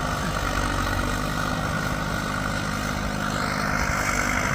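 Bulldozer's diesel engine running steadily, mixed with wind noise on the microphone.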